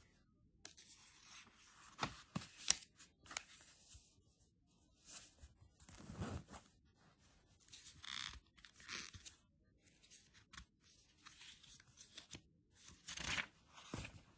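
Glossy catalogue pages being turned and brushed by hand: a series of paper swishes and crackles, several separate page turns.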